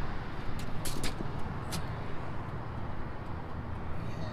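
Steady low vehicle rumble, with a few light sharp clicks between about half a second and two seconds in.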